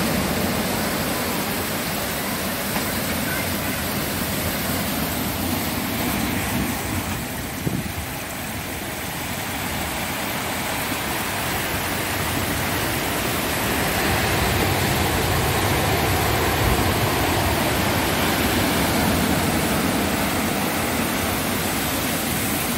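Storm surf breaking against a sea wall, with seawater rushing through a gap in the wall and pouring across a flooded patio in a steady rush of water. It eases for a few seconds about a third of the way in, then swells again from about halfway.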